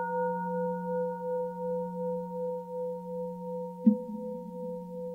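A Buddhist bowl bell rings after a single strike, its several steady tones wavering as they slowly fade. About four seconds in, soft knocks begin, two about a second and a half apart, each adding a low hum.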